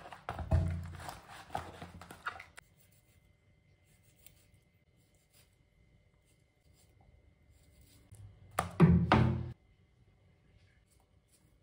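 Raw fish pieces being moved and rubbed against each other in a plastic bowl for the first couple of seconds, then a brief louder clatter of thunks about nine seconds in.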